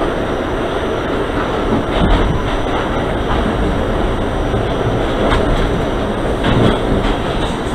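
Subway train running, heard from inside the car: a steady rumble of the wheels on the track, with a few knocks.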